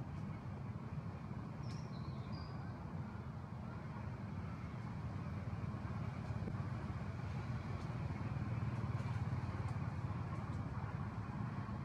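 Steady low rumble of background noise, swelling slightly near the end, with a few short high chirps about two seconds in.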